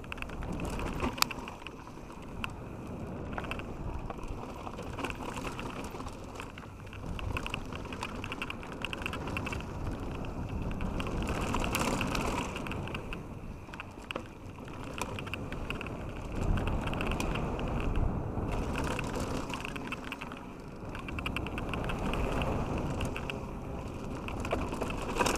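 Canyon Strive enduro mountain bike on Onza tyres ridden fast down a dirt and gravel trail: the tyres crunch and skid over loose ground while the bike rattles and clicks over bumps. The noise swells and eases as the ground and speed change, loudest around twelve and seventeen seconds in.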